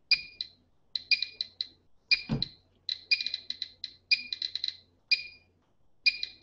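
GMC-300E Geiger counter beeping at random intervals, a few short high beeps a second, each one a particle from the radioactive check source striking its built-in Geiger-Müller tube, at a count of about 300 counts per minute. A dull knock about two seconds in as the unit is handled.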